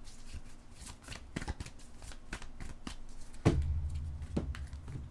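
Tarot cards being shuffled by hand: a quick run of short snapping riffles, with one loud thump about three and a half seconds in.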